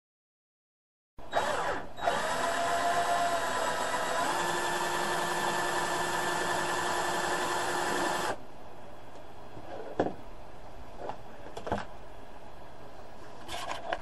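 Black+Decker cordless drill running for about seven seconds, spinning a latch hook yarn cutting tool to wind yarn onto it; its whine steps down in pitch about three seconds in. After the drill stops, a few sharp knocks.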